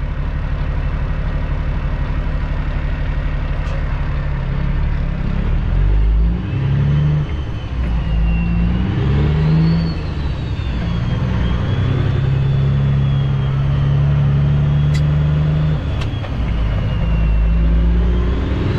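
The Cummins ISX diesel engine of a 2008 Kenworth W900L, heard from inside the cab, pulling away and accelerating through several gear changes. The engine note climbs and drops back at each shift, with a high whine rising and falling above it.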